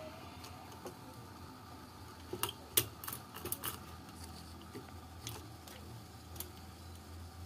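Light clicks and taps of multimeter test probes and fingers on a circuit board's solder pads. A quick cluster comes a little past two seconds in and a couple more follow later, over a faint low hum.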